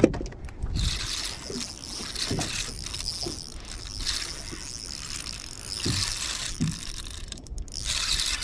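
Spinning reel being cranked steadily, its roller bearings giving a loud, steady high whirring hiss. The cranking stops briefly near the end and starts again.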